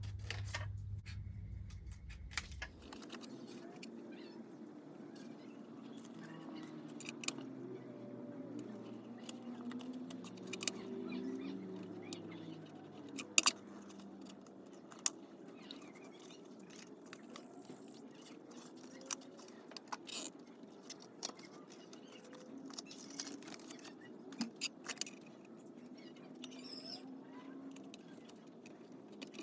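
Scattered light clicks and taps of small hard parts being handled, over a faint wavering background hum. A lower hum stops about three seconds in.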